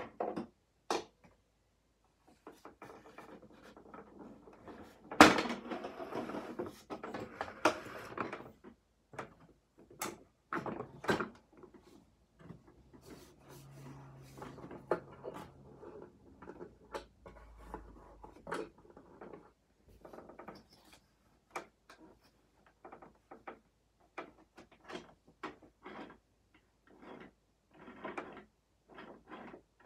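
Objects being handled by hand: scattered clicks and knocks with some rustling, and one sharp knock about five seconds in.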